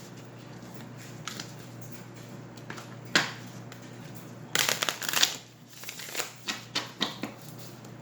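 A tarot deck being shuffled by hand: one sharp card sound about three seconds in, a longer burst of shuffling around the middle, then a few short card flicks.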